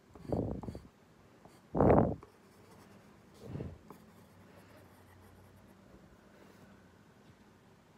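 Wooden pencil scratching on paper in short strokes, drawing the gill lines: three bursts in the first four seconds, the second about two seconds in the loudest, then only faint room hiss.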